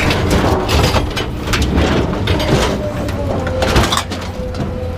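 Scrap metal clattering and banging as it is pulled and dropped off a truck bed, many irregular knocks in a row, over the low steady rumble of an engine running.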